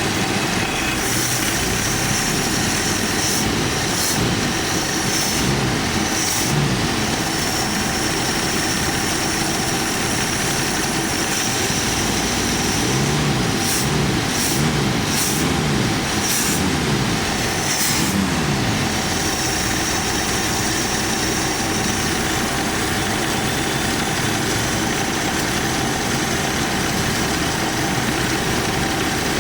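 AMC Jeep engine running steadily at idle on the choke, with the gravelly whirr of its emissions air pump spinning.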